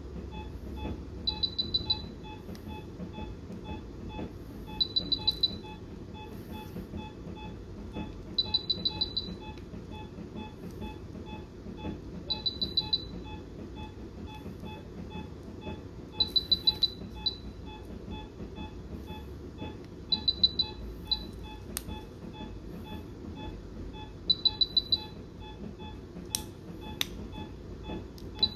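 Anaesthesia patient monitor beeping: soft, regular pips throughout, and about every four seconds a quick run of five or six louder, high beeps. A low steady hum of equipment runs underneath.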